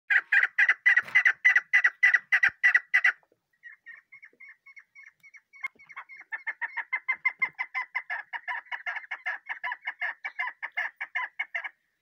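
A young chukar partridge calling in a rapid series of short, sharp notes, about four to five a second. They are loud for the first three seconds, softer for a few seconds, then pick up again and run steadily until they stop shortly before the end.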